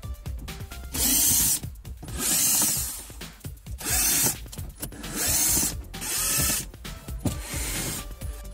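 Cordless drill-driver with a T25 Torx bit spinning in five short bursts of about half a second to a second each, backing out the screws that hold the glovebox in the dashboard. Small clicks and knocks of the tool and plastic come between the runs.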